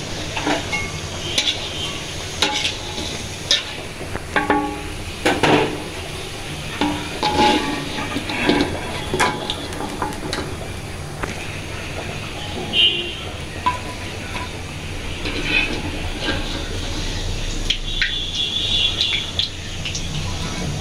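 Lentil-and-onion piyaju fritters deep-frying in hot oil, sizzling steadily, with repeated clinks and scrapes of a wire-mesh skimmer against the pan as the fritters are lifted out.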